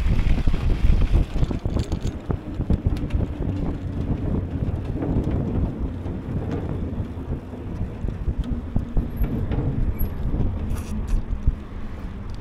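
Wind buffeting the microphone over the rolling rumble of an electric bike's tyres on a paved path. The buffeting is heaviest in the first couple of seconds, then settles into a steadier rush.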